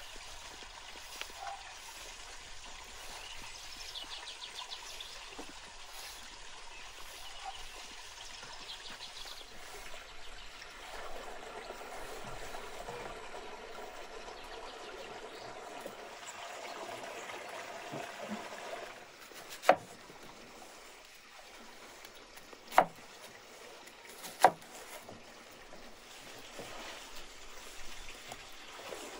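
Steady trickling, running-water sound, with three sharp clicks in the second half, the second about three seconds after the first and the third soon after.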